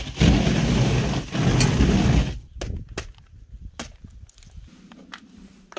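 Thick ice crunching and cracking as it is broken off a frozen car, loud for about two seconds. After that come a few scattered sharp cracks and ticks.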